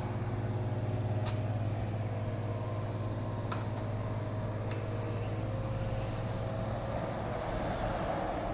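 Steady low mechanical hum with a few light clicks.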